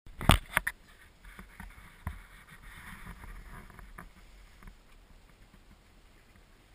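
Inside a moving gondola cabin: a steady low rumble with scattered knocks and rattles, the two sharpest in the first second.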